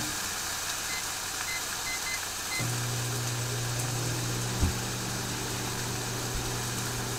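Microwave oven being started: about five short keypad beeps, then from about two and a half seconds in the oven runs with a steady low hum. A single knock comes about four and a half seconds in.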